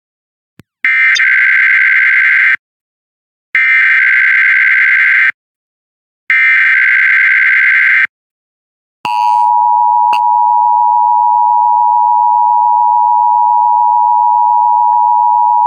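Emergency Alert System alert header: three short bursts of SAME digital data, each under two seconds with brief gaps between them. About nine seconds in, the steady two-tone EAS attention signal starts, opening a coordinated monthly test of the system.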